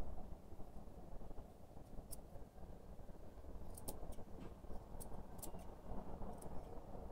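Grooming scissors snipping through a poodle's curly fur: a handful of short, crisp snips, starting about two seconds in, over a steady low background rumble.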